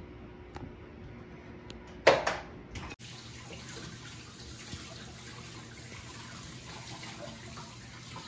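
A brief loud knock about two seconds in, then water pouring steadily from a plastic jug into a glass aquarium tank from about three seconds on.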